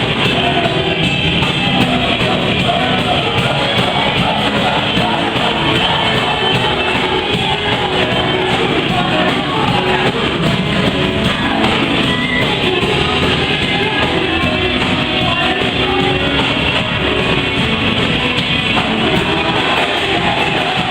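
Live worship band playing loud, steady, upbeat music led by guitar, with voices singing along.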